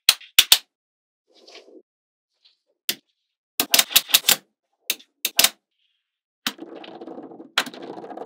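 Small magnetic balls clicking sharply as they snap together, in single clicks and quick runs of four or five, with silence between. For the last couple of seconds a longer, rougher rattle of balls shifting against one another.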